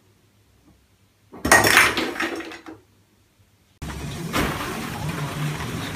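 Objects knocked off a bathroom windowsill by a cat clatter into the washbasin below: a loud, sudden crash with rattling that dies away within about a second. A few seconds later a steady background hum with faint rustling begins.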